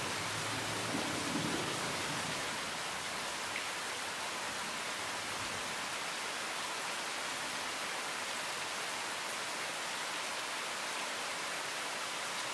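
Heavy rain falling steadily: a dense, even hiss of a downpour on the ground, plants and boat.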